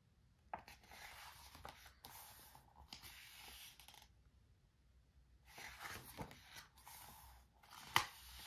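Glossy pages of a photo book being turned by hand: two soft rustling sweeps of paper, then a sharp tap near the end.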